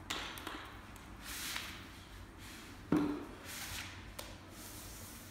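Grout float scraping wet grout across floor tiles in a few separate swipes, with one sharp knock about three seconds in.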